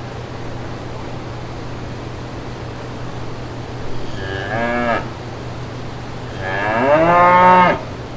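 Cattle mooing twice: a short moo about four seconds in, then a longer, louder one that rises in pitch and levels off before cutting off near the end. A steady low hum runs underneath.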